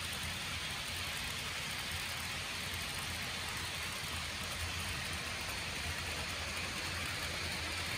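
HO scale model freight train rolling past on the track: a steady hiss of the cars' wheels on the rails over a low hum.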